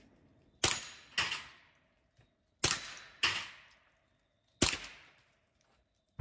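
Rifle shots, three in all about two seconds apart. Each of the first two is followed about half a second later by a second sharp crack.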